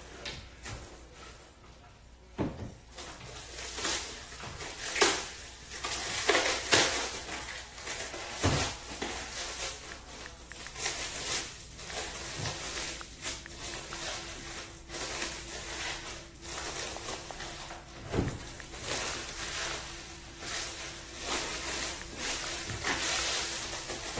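Irregular rustling, clicks and knocks of hands handling things close to the phone's microphone, with a faint steady hum coming in about halfway through.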